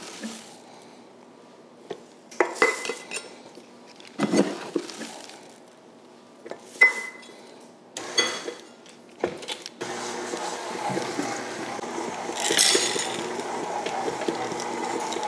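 A steel measuring cup knocks a few times against a stainless steel mixing bowl, with a short metallic ring, as oats are tipped in. About ten seconds in, a KitchenAid Artisan stand mixer starts and runs steadily, its beater working a thick oat cookie dough.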